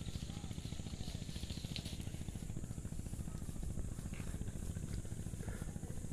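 A motor running steadily: a low rumble with a fast, even pulse.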